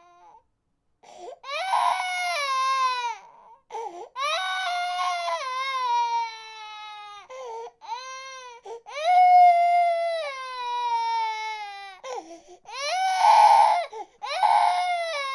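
Infant crying hard in a string of long wails, each sliding down in pitch, with short gasps for breath between them. The loudest cries come about two-thirds of the way through and again near the end.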